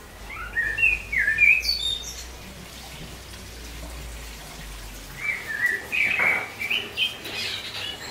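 Songbird chirping in quick short notes that step up and down in pitch, in two spells: about half a second in, and again from about five seconds in.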